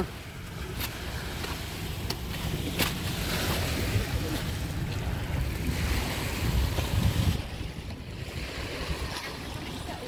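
Wind buffeting the microphone: an uneven low rumble with a rushing hiss that swells in the middle and dies down after about seven seconds.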